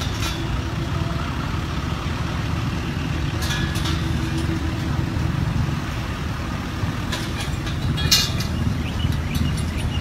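Steady low outdoor rumble, with brief rustling bursts about three and a half, seven and eight seconds in.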